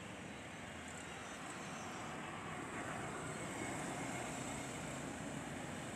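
Road traffic on a riverside road: a steady mix of engine and tyre noise that swells slightly midway as a vehicle draws near.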